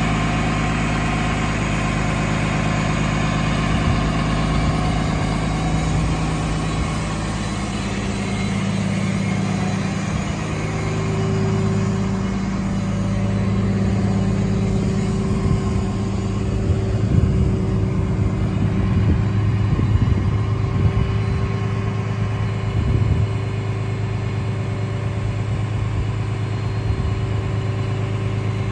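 Freightliner M2 tow truck's engine idling steadily, its pitch shifting slightly about a third of the way in. A run of irregular knocks sounds over it past the middle.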